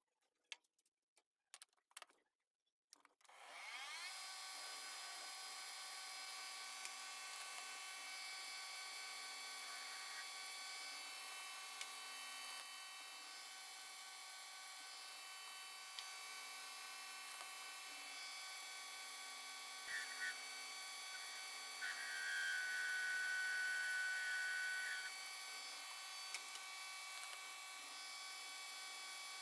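A few light clicks from the workpiece being clamped in the metal lathe's chuck, then the lathe starts about three seconds in, spins up and runs steadily with a whine made of many steady tones. About twenty-two seconds in a louder high tone holds for about three seconds.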